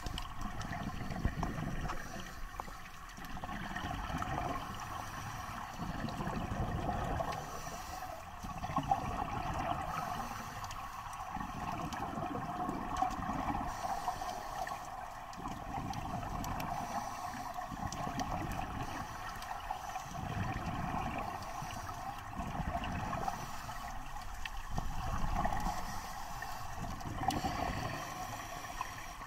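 Underwater sound of scuba breathing: low bubbling rushes from exhaled bubbles come every two to three seconds over a steady hum.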